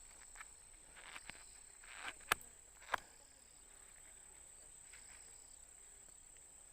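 Steady high-pitched insect chirring in the background, with a soft swish and then two sharp clicks a little after two seconds and again near three seconds.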